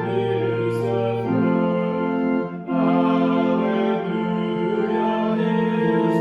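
Organ playing a hymn in held chords, with a short break between phrases about two and a half seconds in.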